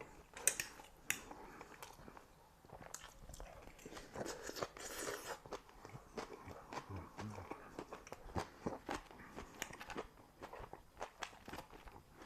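Crunchy food being bitten and chewed close to the microphone, in irregular crunches and clicks.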